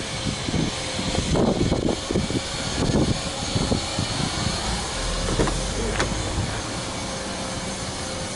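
Steady outdoor background noise with uneven low rumbling and handling noise from a handheld microphone being carried around a parked car. The car's engine is not running.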